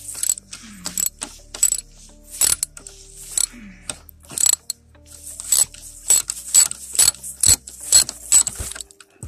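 Ratchet wrench clicking in quick, uneven strokes, about two a second, as it turns bolts on an ATV engine.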